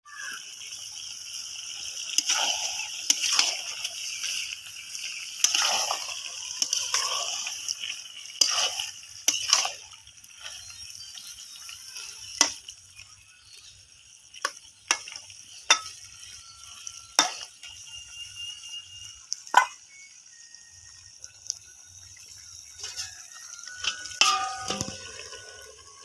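Kitchen work sounds: water sloshing and stirring, then a series of sharp clinks of utensils against a pot or dish.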